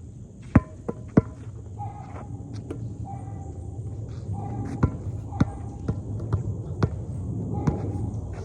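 A basketball bouncing on an outdoor court: three sharp bounces about a second in, then a steadier dribble of roughly two bounces a second from about five seconds in. A short chirping call repeats about once a second throughout.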